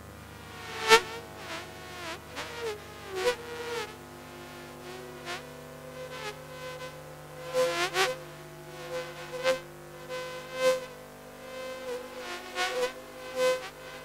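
Electroacoustic sound-art piece made from electric toothbrush recordings: a steady buzzing drone under layered pitched tones, cut by irregular sharp hits that each slide down in pitch. The loudest hit comes about a second in, with a cluster of hits around eight seconds in.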